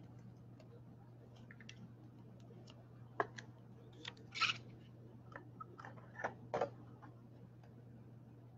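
Faint scattered clicks and a brief rustle of trading cards and plastic card holders being handled, over a steady low hum. The handling sounds come in small clusters about three seconds in, at four and a half seconds, and again past six seconds.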